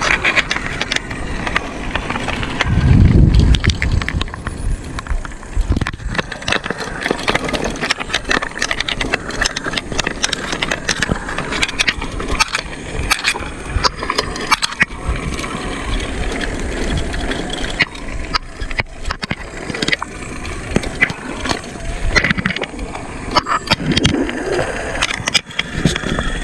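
Bicycle riding over a rough road: continuous rattling and clicking with road and wind noise. A louder low rumble comes about three seconds in.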